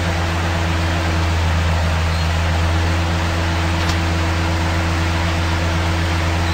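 Side-loader truck running steadily while its hydraulic crane arms move the shipping container: a constant low engine drone with an even hiss. A faint click comes about four seconds in.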